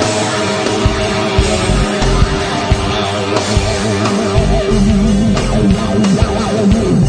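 Loud rock music with electric guitar over a steady drum beat.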